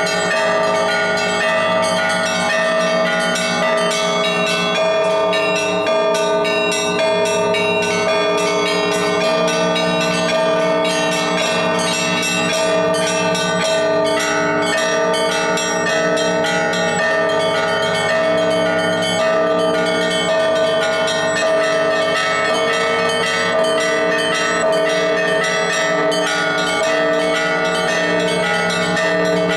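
Russian Orthodox church bells played by one bell ringer. Small bells are struck rapidly and continuously over the lingering hum of the larger bells.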